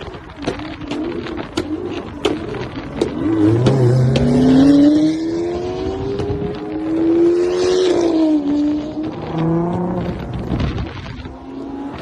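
Nissan GT-R R35's twin-turbo V6 through its exhaust, revving: the pitch climbs over about five seconds, then drops, then rises again briefly near the end. Sharp pops are heard in the first few seconds.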